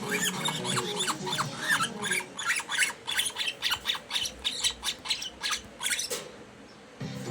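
Baby lovebird (parblue opaline chick) chirping in rapid, short, high squeaks, several a second, stopping about six seconds in. Background music fades out in the first second or two.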